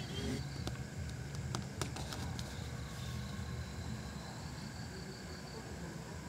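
A jackal eating food scraps off cardboard: a few sharp clicks of its jaws and teeth in the first couple of seconds, over a steady low hum.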